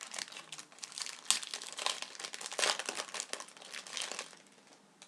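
Hockey card pack wrapper crinkling and rustling in the hands as packs and cards are handled, a dense irregular crackle that stops about four seconds in.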